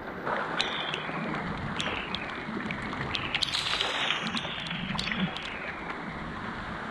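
Steady rush of running and trickling water in a cave, with scattered small sharp clicks.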